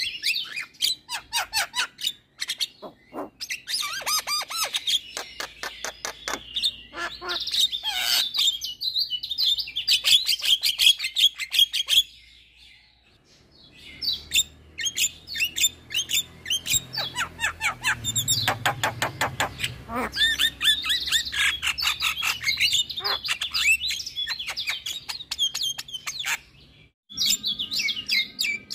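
Javan myna chattering and singing: fast runs of clicks, rattles and whistled notes. It breaks off for a second or so twice, once a little before the middle and once near the end.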